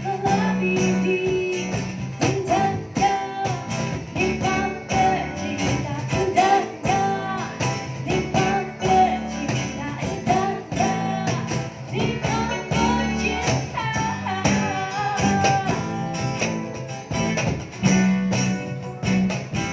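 A pop song performed with a sung melody over guitar and tambourine, with a steady bass line underneath.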